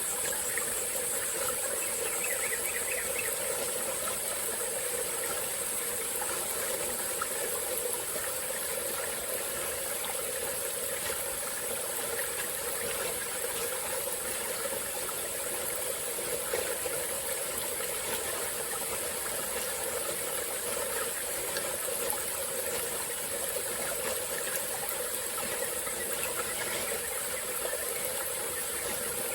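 Small stream flowing steadily, with a continuous high-pitched insect chorus over it.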